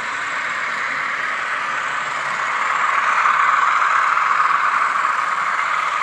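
Diesel engine sound from the sound decoders of N gauge model class 50 and class 47 locomotives, played through their tiny onboard speakers: a steady drone with little bass that grows louder about three seconds in.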